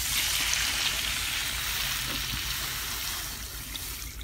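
Half-and-half poured into a hot pan of butter and minced garlic, with a steady sizzling, pouring hiss that fades toward the end.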